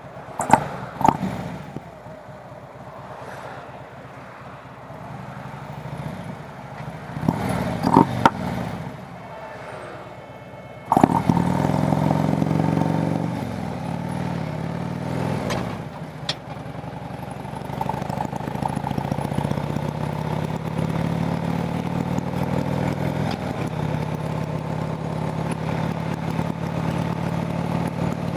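Harley-Davidson V-twin motorcycle engine idling low, with a few knocks, then about eleven seconds in the throttle opens suddenly and the revs climb as the bike pulls away. After a gear change the engine settles into a steady run.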